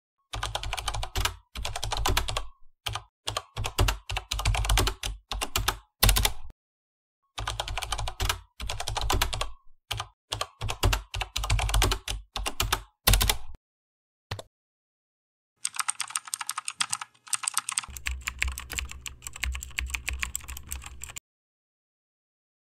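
Keyboard typing: rapid runs of key clicks in bursts with short breaks. There is a pause near the middle, then a thinner run of clicks that stops a little before the end.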